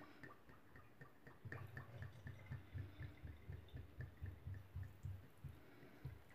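Cooking oil glugging faintly out of the neck of a glass bottle as it is poured into a bowl of flour mixture, in soft, even pulses about four a second.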